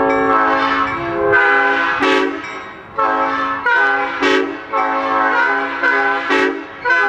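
Nathan P5 five-chime air horn sounding a held chord that breaks, about a second in, into a string of short blasts roughly every two-thirds of a second, with one lower note held underneath.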